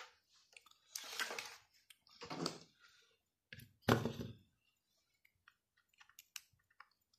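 Hands handling a plastic LED bulb and test leads: a few short scraping rustles as the bulb is fitted into its holder, the sharpest about four seconds in, then scattered faint clicks.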